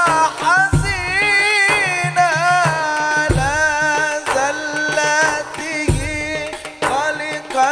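A man singing an Arabic sholawat (devotional song in praise of the Prophet) in long, ornamented lines over drum percussion. A deep drum stroke falls about every two and a half seconds, with lighter strokes in between.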